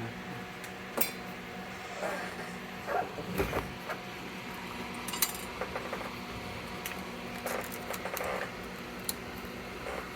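Small metal tools and parts clicking and clinking on a workbench during circuit board repair, in irregular bursts, over a steady electrical hum.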